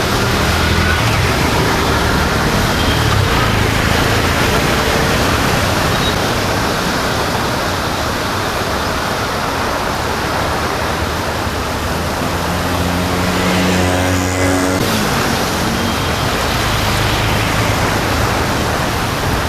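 Steady street hiss of rain and traffic on a wet road, with engine hum from motor vehicles; one vehicle passes close about two-thirds of the way through, its engine note sliding down as it goes by.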